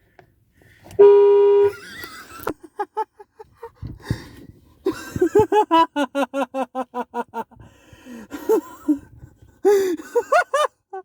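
A car horn sounds one short, steady blast about a second in. A man then laughs hard in quick, rhythmic bursts for several seconds.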